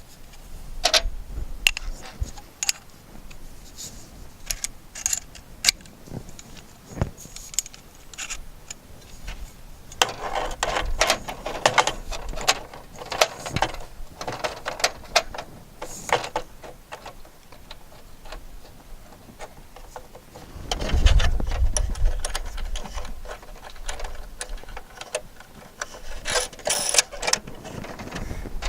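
Irregular clicks, taps and small metallic clinks of hand tools and metal fittings being worked, busiest in the middle, with a heavier low thump a little past two-thirds of the way through.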